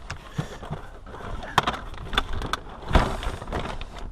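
Tools and gear being handled and moved about: a few sharp clicks and knocks over rustling, the loudest knock about three seconds in.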